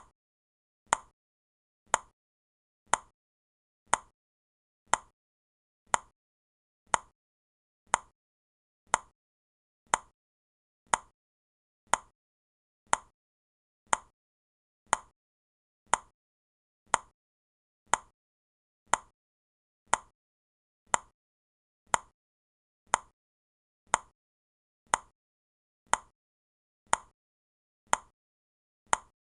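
Countdown timer ticking, one sharp, even clock tick every second, marking off the seconds of the countdown.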